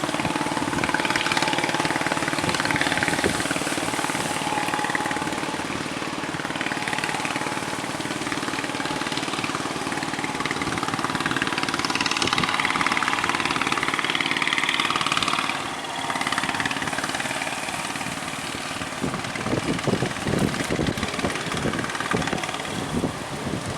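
A fishing boat's engine running steadily, mixed with the rush of wind and water. Rough, irregular buffeting of wind on the microphone comes in over the last few seconds.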